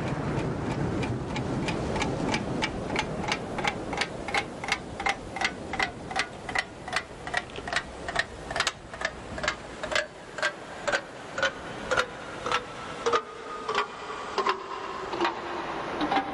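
Steady ticking like a clock counting down, about three ticks a second that gradually slow to about two a second, each tick's ring dropping slightly in pitch toward the end. A low rushing noise underneath fades out by about midway.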